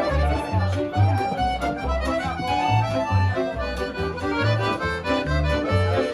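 Music with a steady, repeating bass pattern under a melody line.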